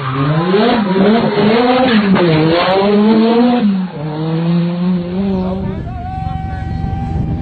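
Rally car engine revving hard, its pitch climbing and dropping again and again through gear changes and lifts; about six seconds in it settles into a steady high note.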